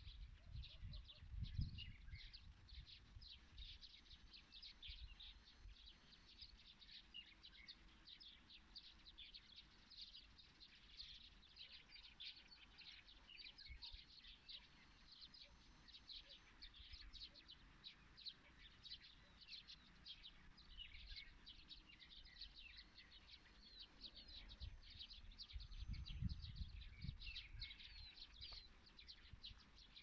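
Faint chorus of many small birds chirping and twittering at once, a dense, continuous stream of short, high chirps. A low rumble rises under it near the start and again about 25 seconds in.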